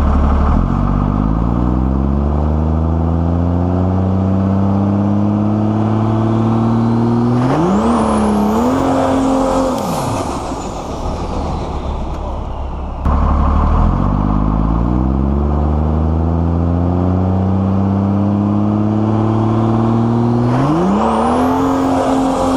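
Pro Street diesel truck engine pulling hard, its pitch climbing steadily for several seconds, then flaring up sharply as the rear tyres break loose and spin in smoke, with a high whine sweeping up alongside before the revs drop. After a sudden cut about halfway through, the same run is heard again.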